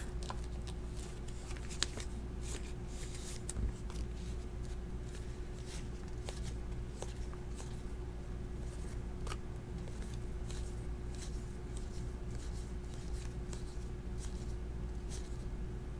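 Glossy baseball trading cards being flipped and slid across one another in the hands, with faint scattered clicks and rustles, over a steady low hum.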